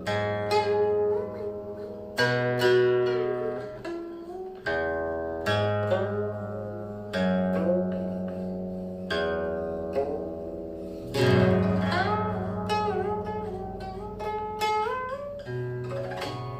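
Guqin played solo: plucked strings ring and fade, with many notes sliding up and down in pitch after the pluck. A strong low note is plucked every second or two.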